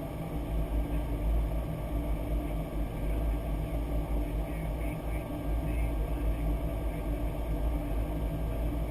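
Steady low rumble of airflow and engine noise on the flight deck of a Boeing 737-800, with a few faint steady tones over it.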